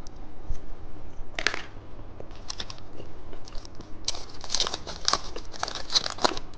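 Candy packaging being handled and torn open: crinkling and tearing, a short crackle about a second and a half in, then dense crinkling through the second half.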